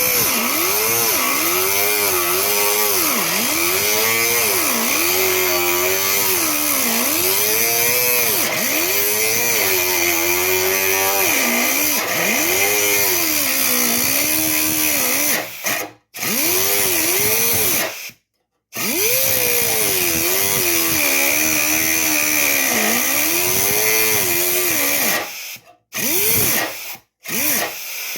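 Power tool cutting rusted sheet steel out of a truck tailgate, its motor pitch repeatedly sagging and recovering as it is pushed into the cut. It stops briefly a few times, twice in quick succession near the end.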